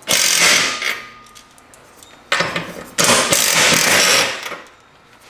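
Cordless impact driver with a socket backing nuts off a wall-mount plate's bolts, in two main runs: one about a second long at the start and a longer one after the middle, with a brief blip between them.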